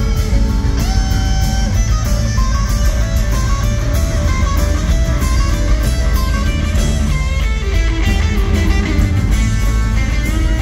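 Live rock band with electric guitars, bass and drums playing a blues-rock song. A lead electric guitar plays runs of single notes, some of them bent, over the band.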